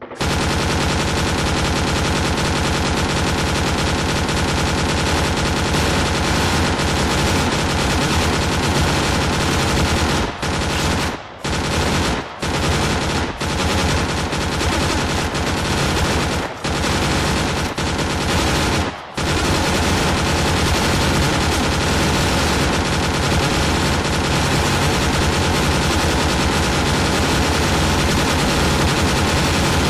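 WWI machine gun firing long, rapid continuous bursts. Several brief breaks in the fire come between about 10 and 19 seconds in.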